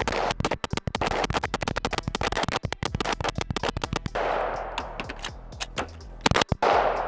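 Gen 3 Glock 17 9mm pistol with a G-Flex Reflex trigger firing a magazine in rapid succession for about four seconds, then a few slower, spaced shots. It is a function check after being stripped and reassembled at the end of the torture test.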